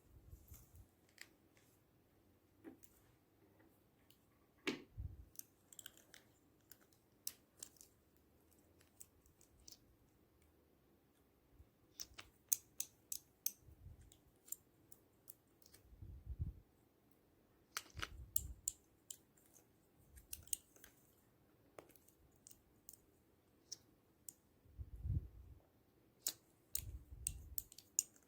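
Slime being mixed and pressed by hand, giving scattered faint clicks and pops, with a few soft low thuds.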